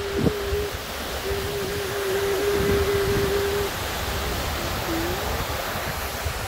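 Creek water rushing over rocky cascades in a steady hiss, with a steady low humming tone held for stretches of a second or two, broken twice, and a few dull low thumps.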